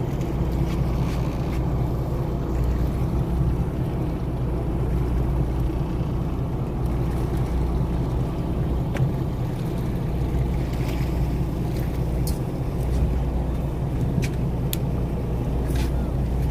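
A fishing boat's engine running steadily, a low even hum heard on board.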